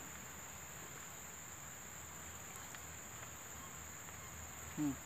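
Steady high-pitched chirring of insects in the undergrowth, with a man's short vocal sound near the end.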